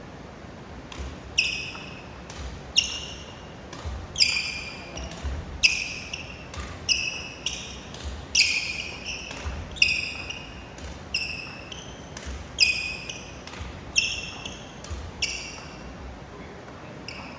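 Badminton rackets striking shuttlecocks in a steady rally of push shots during a feeding drill, about one hit every 0.7 s with every other hit louder. Each hit is a sharp crack with a brief high ping from the strings, over low thuds.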